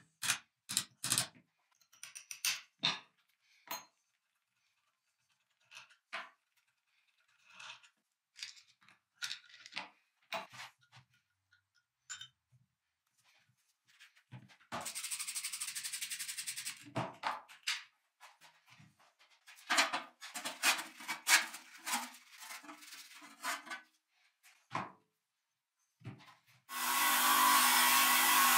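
Workshop handling sounds: scattered clicks, taps and knocks of tools and parts, and a hiss lasting about two seconds midway. Near the end an electric motor starts and runs steadily.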